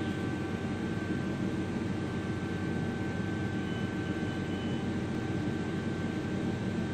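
Steady low drone of running machinery, with a faint steady whine above it.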